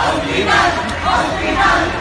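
A crowd of protesters chanting slogans together, a rhythmic shout about twice a second.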